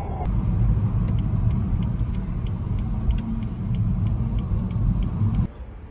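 Car cabin noise while driving: a steady low road-and-engine rumble, with the turn-signal relay ticking about three times a second. Both stop abruptly near the end.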